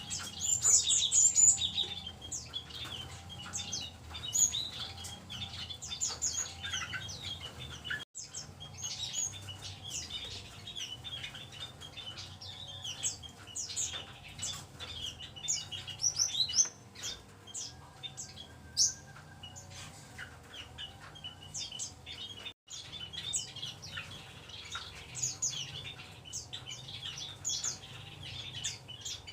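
A mixed group of small caged songbirds chirping and twittering at once, many short high calls overlapping without a break, over a faint low hum. The sound cuts out for an instant twice, about a quarter of the way in and again about three quarters through.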